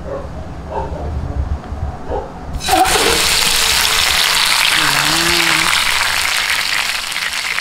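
Hot cooking oil in a wok starts sizzling loudly about two and a half seconds in, as a whole marinated chicken is lowered in to be lightly fried. It keeps sizzling steadily after that.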